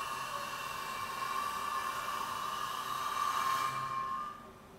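Face mill on a milling machine facing off a block of cedar: a steady cutting noise with a high whine over it. It stops about four seconds in.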